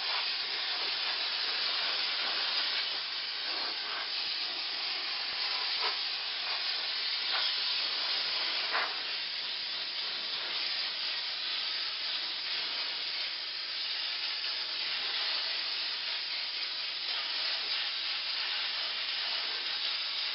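Portable steam cleaner jetting steam onto an HVAC evaporator coil: a steady, loud hiss with a few faint clicks in the middle.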